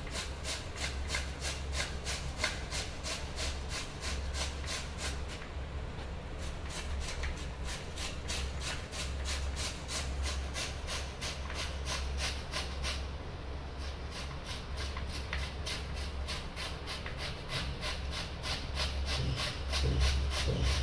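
Peeled potato being sliced on the slicing blade of a stainless steel box grater: a steady rhythm of scraping strokes, about four a second.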